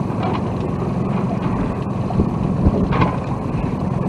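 Sailboat under way in strong wind: a steady low hum with wind and water noise, and a few short knocks about two and three seconds in.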